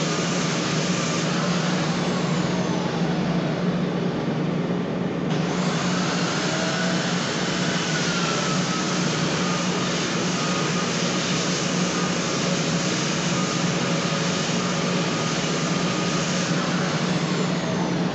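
Handheld electric sander running without a break as it sands a wooden stair tread. It makes a steady hum, with a faint whine that drifts a little in pitch as the sander is pushed across the board.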